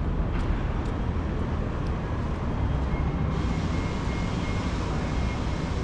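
City street ambience: a steady low rumble of traffic, with a faint high steady whine for a couple of seconds in the middle.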